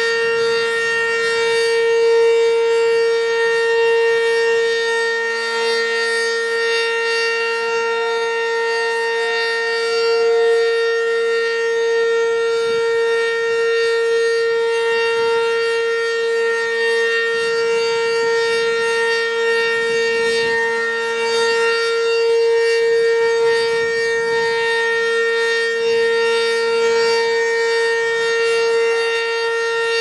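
Sentry 10V2T two-tone outdoor warning siren sounding a steady alert during a test, holding one unchanging loud chord with no rise or fall.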